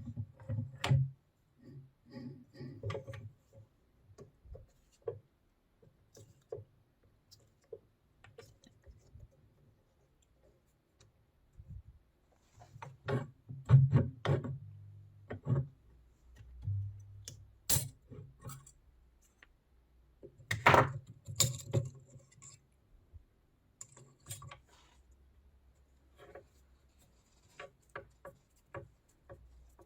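Irregular metallic clicks, clinks and knocks of drill press parts and hand tools being handled and set down, with louder clanks about halfway through and again a little later.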